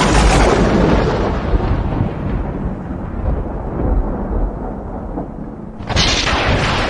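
Outro sound effect: a sudden loud noise with a deep rumble that slowly fades, followed by a second sudden burst about six seconds in.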